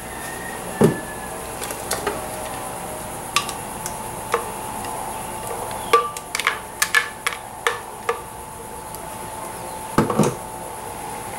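A spoon scraping and tapping thick blended avocado salsa out of a blender jar into ceramic bowls: a string of light clinks and knocks, most of them about six to eight seconds in.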